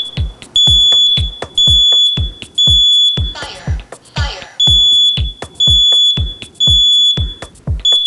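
Kidde combination smoke and carbon monoxide alarm sounding: loud, high-pitched beeps of under a second each, about one a second, in groups with a short pause between them. Background music with a steady beat plays underneath.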